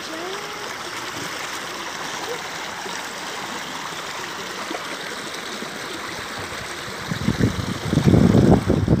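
Shallow, rocky stream running over stones: a steady rush of water. From about two seconds before the end, loud, uneven low rumbling buffets the microphone.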